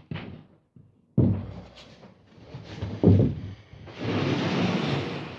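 Two loud thuds of things being handled in a workshop, then about a second and a half of steady scraping noise.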